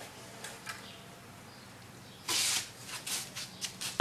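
A short scrape about two seconds in, then a few light knocks and clicks: the wooden birdhouse base and stand being handled and set down while its sturdiness is tested.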